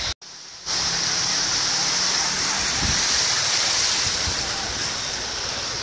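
Floodwater from the overflowing Pemali River rushing steadily across a road. It dips briefly just after the start.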